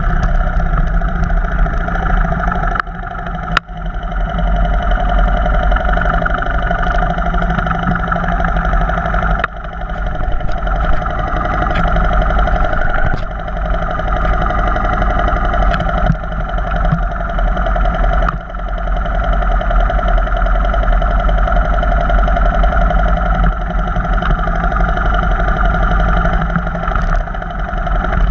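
Off-road vehicle engine running steadily under way on a trail, a continuous drone that dips briefly a few times. It is broken by occasional sharp knocks.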